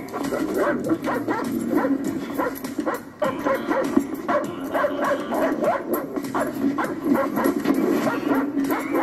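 German Shepherd dog barking over and over, a couple of barks a second, over background music.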